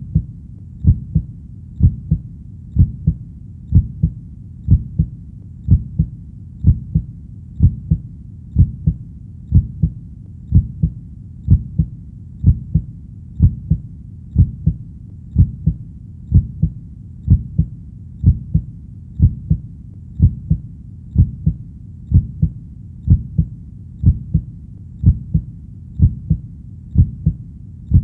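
Heartbeat: a steady double thump, lub-dub, repeating about once a second, deep and muffled, over a low steady rumble between the beats.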